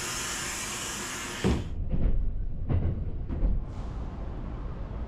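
Loud hiss of compressed air at the coupled ends of two 287-series train units being uncoupled, cutting off suddenly about a second and a half in, followed by several low clunks. Near the end a quieter steady outdoor noise takes over.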